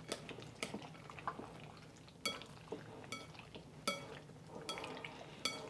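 Chopsticks stirring raw chicken in an egg and soy sauce marinade in a ceramic bowl, with several sharp clinks as the chopsticks strike the bowl, each ringing briefly.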